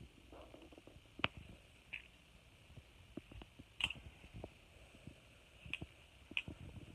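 Faint handling noises of a balisong being unpacked: soft rustling of its bag and foam with a few scattered sharp clicks.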